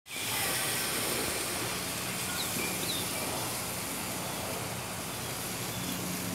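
Steak, eggs and bologna sizzling in cast iron skillets over the lit burners of a two-burner Camp Chef propane stove: a steady hiss, with a low steady hum joining in about a second and a half in and a few faint high chirps.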